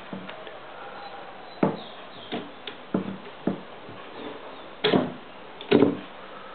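A series of sharp knocks and clicks, about seven in irregular succession, the two near the end longer and loudest, over a steady hiss.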